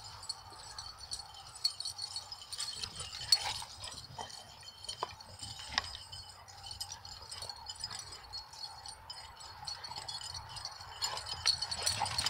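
Dog collars and tags jingling and clinking as the dogs run and play, in irregular light metallic rattles with a few sharper clicks scattered through.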